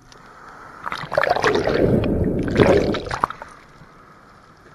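Ocean wave breaking over a camera held at the water's surface: whitewater rushing, sloshing and gurgling in two loud surges, about one and two and a half seconds in, then dying down to a low hiss.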